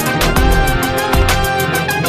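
Intro music with a steady beat.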